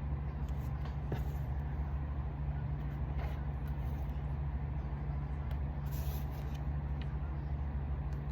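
Car engine idling with a steady low hum, and a few faint light clicks.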